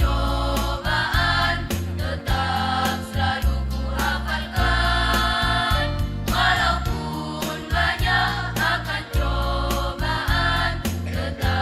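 Choir singing a march song in unison over instrumental accompaniment with heavy bass and a steady beat.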